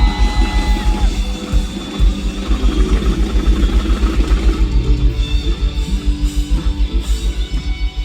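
A live rock band playing an instrumental passage: guitar over a fast, driving kick drum, with no singing.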